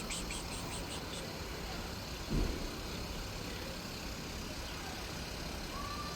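Steady low background rumble with a quick, evenly spaced run of faint high ticks during the first second and a single dull thump about two and a half seconds in.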